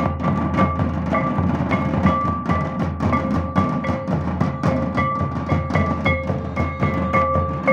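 Santal festival drumming: a group of large tamak' kettle drums and tumdak' barrel drums beaten together in a fast, steady rhythm. A ringing high note recurs along with the beats.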